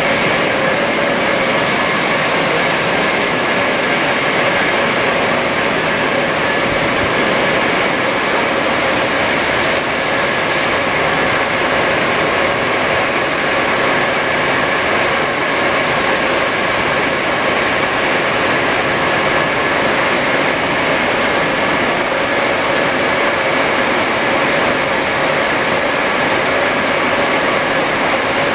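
Moscow Metro 81-775/776/777 (Moskva-2020) train standing at a station platform with its doors open, its equipment giving a steady hum with several steady whining tones, over the even noise of the station hall.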